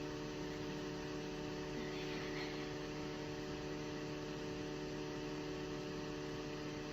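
Steady electrical hum over a faint even hiss.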